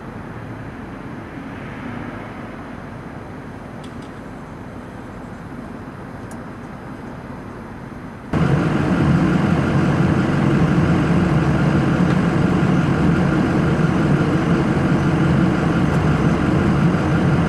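Steady car noise heard from inside the cabin: a low, quiet rumble at first, then about eight seconds in a sudden jump to a much louder, steady running-engine and road noise.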